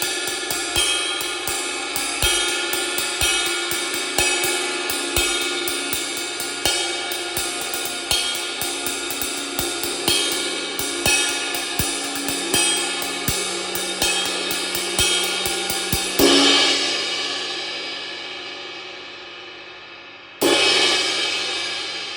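Repaired Istanbul Mehmet 22-inch Session Ride cymbal (3228 g) played with a stick in a steady ride pattern, its wash building under the strokes. About 16 seconds in it is struck harder and left to ring out, then struck hard once more near the end and left to decay.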